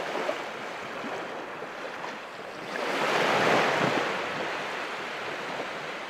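Ocean waves washing on open water, a steady rushing that swells louder in the middle and eases off again.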